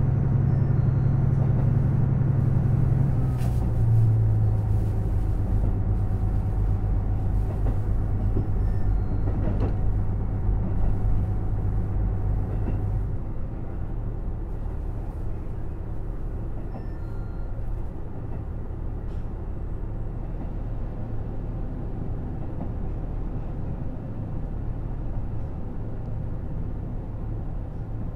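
Running sound heard aboard a KiHa 75 diesel railcar: a low diesel-engine drone over the rumble of the wheels on the rails. The engine note steps down a few seconds in, and the drone grows quieter about 13 seconds in while the rumble goes on.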